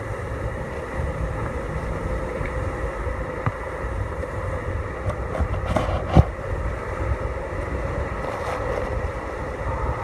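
Steady heavy rush of Seljalandsfoss waterfall close by, muffled through a phone in a waterproof case, with wind buffeting the microphone. A few sharp knocks, the loudest about six seconds in.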